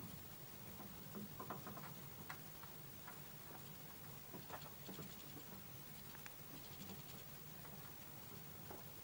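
Faint, irregular clicks and taps of small birds pecking at sunflower seeds in a plastic feeder tray, coming in short clusters over a steady low hum.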